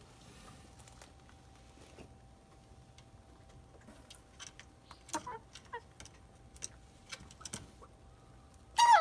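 Hinai-dori chickens: scattered faint clicks, a short falling call about five seconds in, and a loud falling call right at the end.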